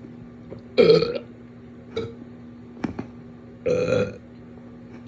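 A person burping: two loud, drawn-out belches about a second in and near four seconds in, with a shorter, fainter burp between them.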